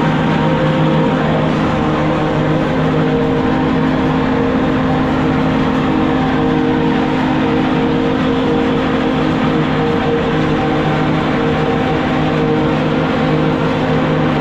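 Swaraj 969 tractor running steadily under load, driving a four-row silage cutter through standing maize: a constant engine drone with the cutter's rushing noise over it.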